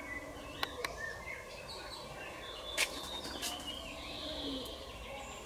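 Small birds chirping with short, scattered calls, and a few brief clicks, the sharpest about three seconds in.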